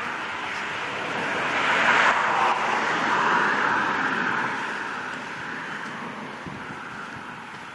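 A vehicle passing by: a rushing noise that swells to its loudest about two to three seconds in, then slowly fades away.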